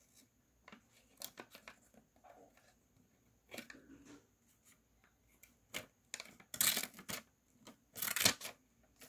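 Small scissors from a geometry box snipping through a sheet of paper: scattered faint snips and paper rustles, with louder cuts about six and a half and eight seconds in.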